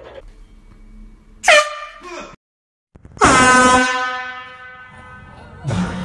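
Air horn blasts: a short loud one about a second and a half in, then a longer one about three seconds in that dies away over a couple of seconds. A brief noisy burst comes just before the end.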